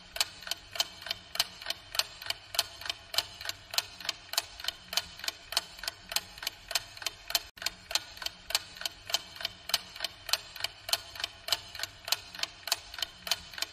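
Ticking-clock sound effect counting down the answer time on a quiz: rapid, even ticks.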